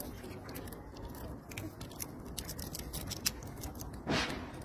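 Macaque cracking peanut shells with its teeth and chewing: a run of sharp, irregular crunching clicks, with one short louder burst about four seconds in.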